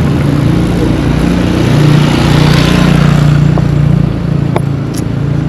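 A motor vehicle's engine passing close by, growing louder to a peak about two to three seconds in, then fading.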